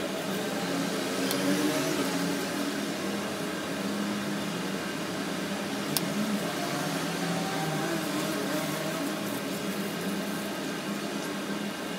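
Steady low hum of a small motor, with a couple of faint clicks.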